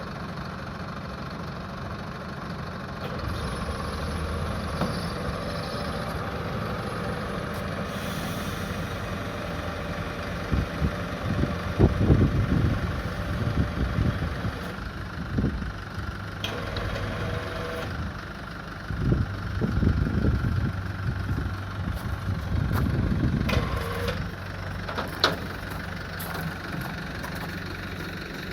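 A vehicle engine idling steadily, with irregular louder low rumbles through the middle and a few short clanks or knocks near the end.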